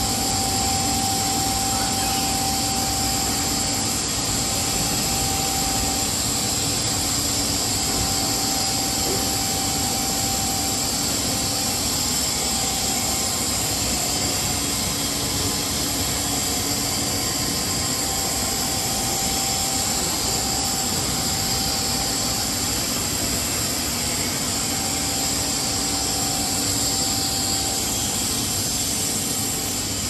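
Steady machine noise of a running rubber hose extrusion line: a constant hiss and hum, with a mid-pitched whine that fades in and out.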